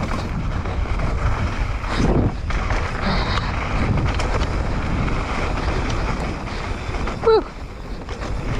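Wind buffeting the microphone over a mountain bike's tyres rolling down a wet dirt trail, with the bike rattling and knocking over bumps.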